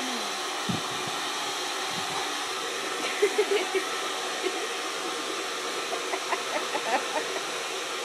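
Hand-held hair dryer blowing steadily. A few short voice sounds break in about three seconds in and again later on.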